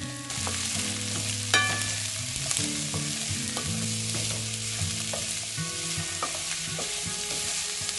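Korean squash (aehobak) strips sizzling in hot olive oil and garlic in a stainless steel pan as they are stirred with a wooden spatula. A sharp knock comes about one and a half seconds in.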